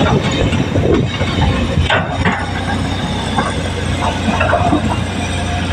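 Heavy diesel earthmoving machinery running steadily with a low hum, with scattered knocks and clatter.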